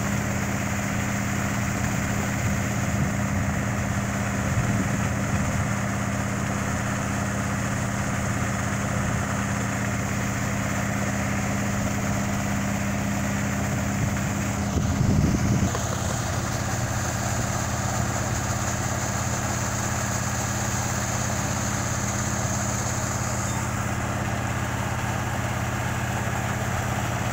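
Pump motor running steadily under load with a constant low hum, while the well is being cleared of silt. The operator puts its note down, uncertainly, to the pressure it is working against. A brief louder burst comes about halfway through.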